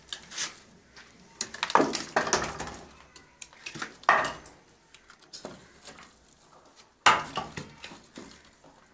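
Old wooden shuttering planks being lifted and tossed aside from a pile, knocking and clattering against each other in irregular bursts. The loudest knocks come about two, four and seven seconds in.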